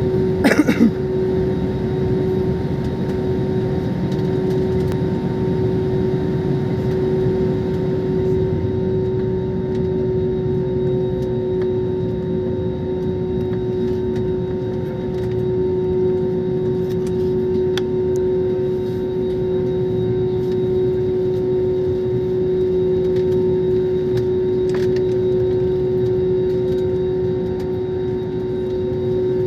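Airliner jet engines running steadily at low power, a constant hum with a steady drone over a low rumble, before the takeoff roll. A brief click just under a second in.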